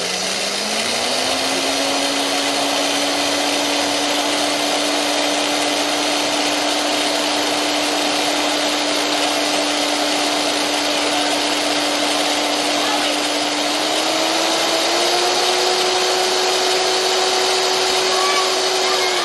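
Old Craftsman corded electric drill spinning up and running steadily, a soldering iron tip turning in its chuck while a file rasps against it. The motor whine rises quickly at the start, holds steady, then steps up slightly in pitch a few seconds before the end.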